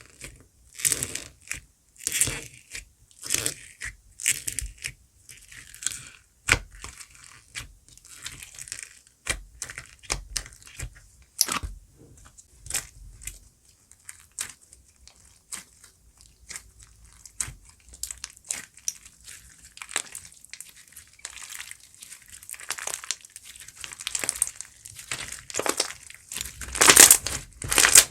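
Oreo foam slime being squeezed and pressed by hand, giving a series of short crackly squishes about one a second that grow louder near the end.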